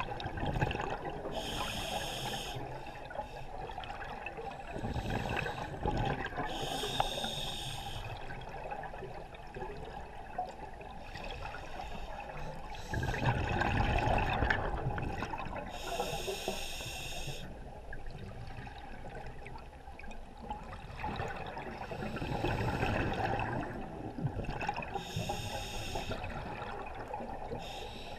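Scuba diver's regulator breathing underwater: four hissing inhalations with a stack of high tones, several seconds apart. Between them come rushes of exhaled bubbles.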